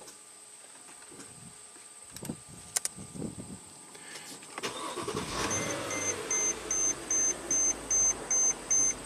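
Mercedes-Benz GL450's V8 engine starting about four and a half seconds in and settling to idle, while a warning chime beeps steadily about twice a second.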